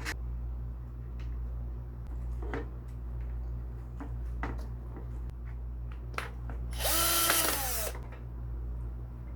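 An electric power tool's motor runs in one short burst of about a second and spins down, its pitch dropping as it stops. Several light clicks and knocks of handling come before it, over a steady low hum.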